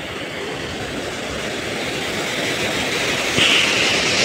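Water rushing through a concrete river dam. It is a steady rushing noise that grows louder, turning brighter and hissier about three and a half seconds in.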